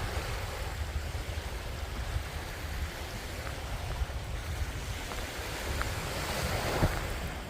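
Wind buffeting the microphone over the steady wash of surf breaking on the beach, the surf hiss swelling a little near the end.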